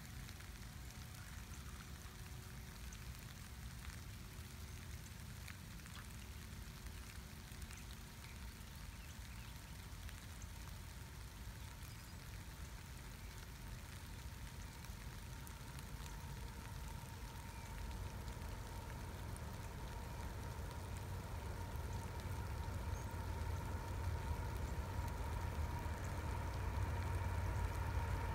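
Distant diesel freight train approaching: a low rumble that grows steadily louder over the last dozen seconds, with a faint steady whine joining in, over a constant soft hiss.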